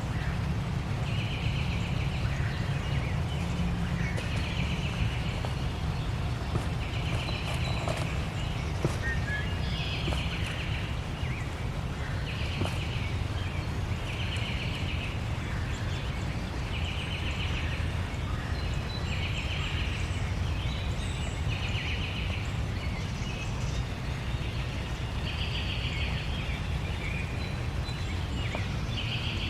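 An outdoor animal gives a short buzzy trill, about a second long, repeating every two to three seconds over a steady low rumble.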